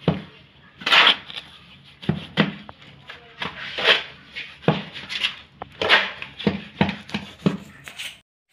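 Shovel scraping through a heap of wet cement mortar on a concrete floor as it is mixed by hand: repeated scraping strokes, about one every half second to one second.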